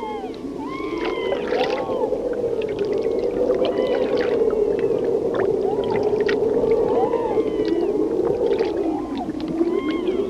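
Underwater chorus of harp seal calls: many short, arching chirps and glides over a long, slowly wavering tone.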